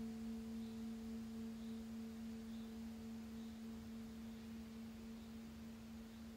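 A single low ringing tone held steady and slowly fading, with a fainter wavering overtone above it.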